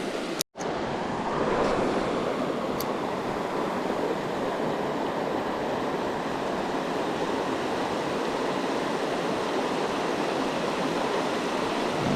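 Creek water rushing steadily, a broad even hiss of running water, with a brief drop to silence about half a second in.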